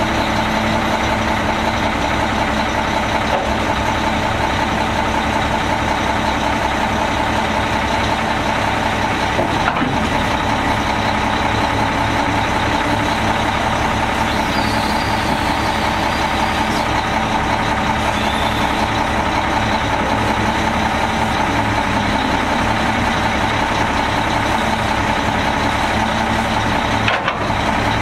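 Mack E7 12.0-litre straight-six turbo diesel of a 2002 Mack MR690S refuse truck idling steadily.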